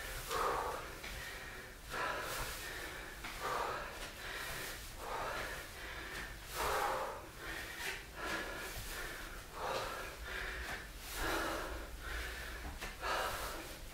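A man breathing hard from exertion while doing lunges, with a loud breath about every one and a half seconds.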